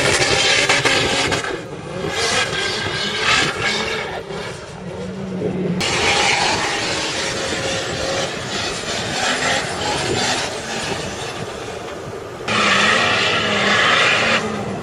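Large 4x4 SUV engines revving hard under load as the vehicles climb sand dunes, in several short clips that change abruptly a few times.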